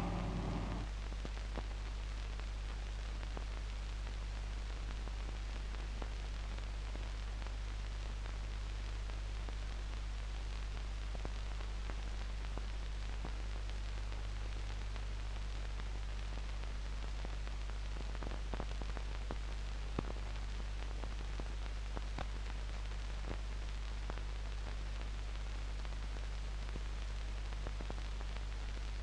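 Steady hiss and low mains hum of an old film soundtrack with no other sound on it, broken by a few faint clicks, one a little sharper about twenty seconds in.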